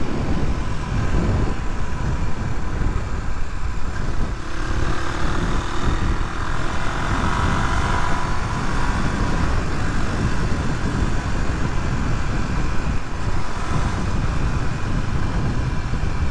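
Suzuki DR250S motorcycle's single-cylinder engine running on the move under heavy wind noise on the microphone, its engine note rising about five seconds in.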